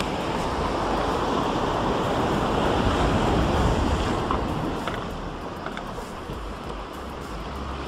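Sea waves breaking on the shore: a surge that swells to a peak about three seconds in and then eases off, with wind buffeting the microphone.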